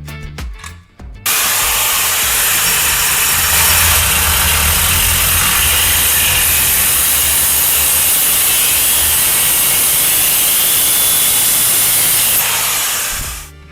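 Angle grinder cutting disc grinding through a square metal rod: a loud, steady cutting noise that starts abruptly about a second in and fades out near the end.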